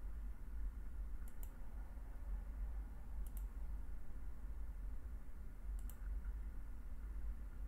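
Computer mouse button clicking three times, about two seconds apart, each a quick pair of clicks, while points of an area outline are placed with a PDF measuring tool. A low steady hum runs underneath.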